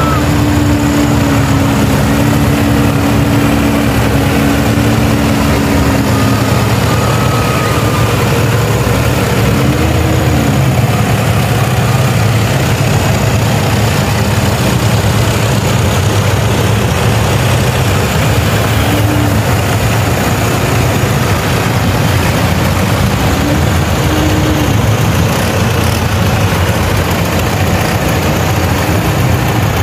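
Diesel farm tractor engines idling, a steady low rumble. A held two-note tone sounds over the first few seconds, and short rising-and-falling tones come about three times later.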